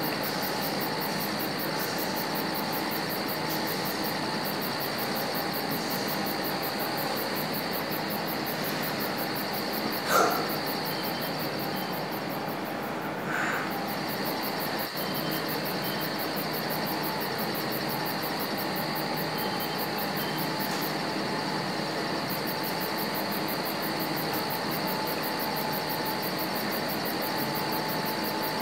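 Steady room noise: an even hiss with faint high whining tones. A short sharp sound about ten seconds in and a fainter one a few seconds later break it.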